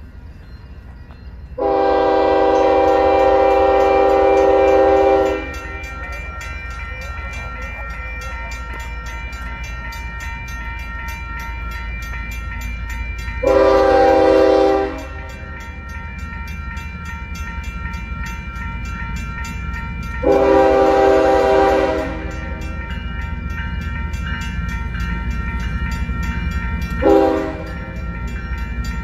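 Multi-chime air horn of an approaching Union Pacific GE C45ACCTE locomotive sounding for a grade crossing: a first blast of about four seconds, then three shorter ones, the last the briefest, near the end. Under it a steady low rumble of the oncoming train and the quick regular ringing of the crossing signal's bell.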